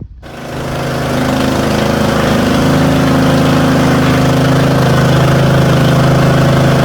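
Craftsman riding mower's 20 hp Briggs & Stratton engine running steadily and loud. It comes in sharply right at the start and settles into an even note within about a second.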